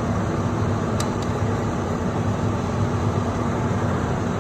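Steady mechanical drone with a low hum, and two light clicks about a second in.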